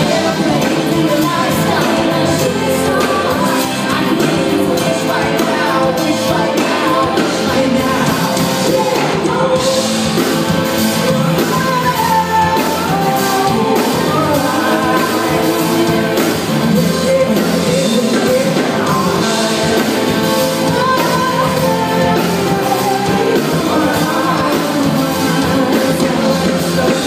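A live band of electric bass, drum kit and keyboard playing a pop-rock song, with vocals over it through the stage PA.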